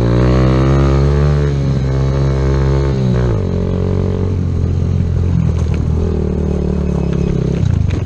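Kawasaki Z125's single-cylinder 125 cc engine running under way. Its pitch holds fairly steady for about three seconds, then drops and carries on lower.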